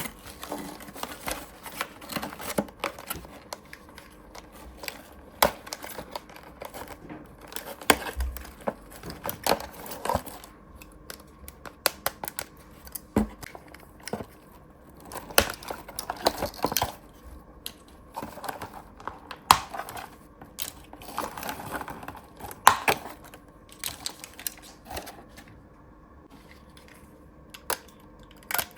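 Plastic toy pieces and packaging being handled: scattered, irregular light clicks and taps with bits of crinkling.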